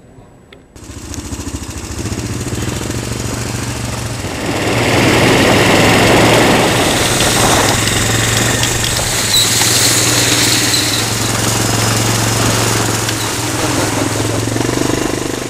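ATV engine running steadily, louder from about four seconds in, with a low steady hum under rough broad noise; it starts and stops abruptly.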